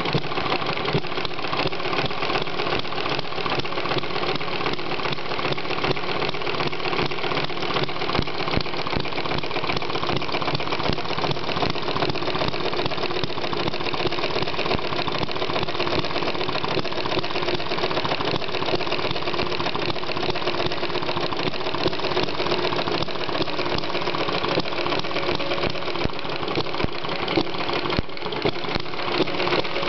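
Model Atkinson engine running steadily, with a fast, even mechanical beat that holds the same pace throughout.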